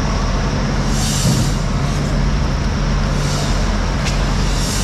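Steady low mechanical rumble, with rushes of hiss about a second in and again near three seconds, and a short sharp knock near the end.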